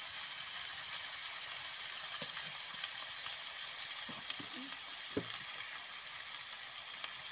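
Fish pieces sizzling in oil in a blackened iron wok: a steady hiss, with a few faint knocks.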